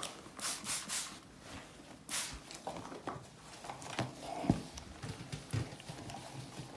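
Hand ironing on an ironing board: short rustling hisses of fabric being handled and pulled straight, then a couple of light knocks about four seconds in, the second the loudest.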